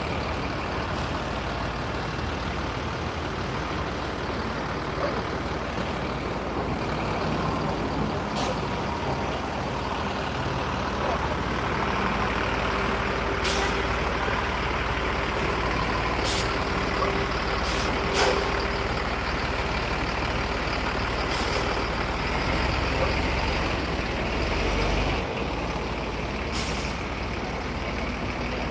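Heavy city street traffic at an intersection: trucks and cars running close by with a steady low rumble, and several short sharp hisses and clicks, the loudest about two thirds of the way through.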